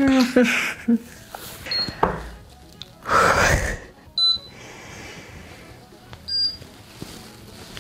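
Homemade Arduino alarm clock ticking at irregular intervals, one sharp tick every two to three seconds, over background music. A man mumbles gibberish at the start, and a loud breathy rush comes about three seconds in.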